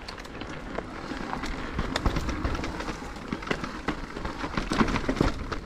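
Mountain bike riding over a rough trail: steady tyre rumble with many irregular knocks and rattles.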